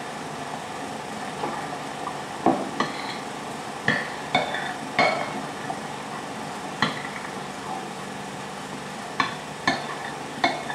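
Cutlery tapping and clinking against a plate while eating: about ten light, unevenly spaced clinks, some with a short ring.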